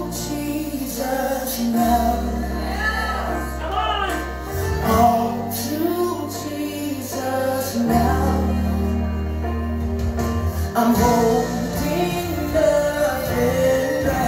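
Recorded gospel ballad: a woman sings lead with gliding, sustained phrases over long held bass notes and keyboard.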